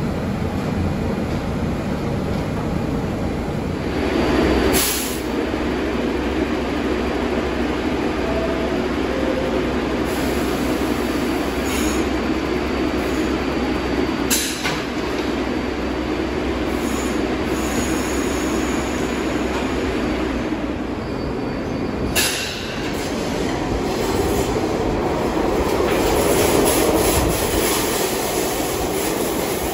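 An R62A subway shuttle train standing at the platform with its equipment running steadily, with a few short sharp noises from the car. Near the end it pulls away, its motor noise building and its wheels squealing.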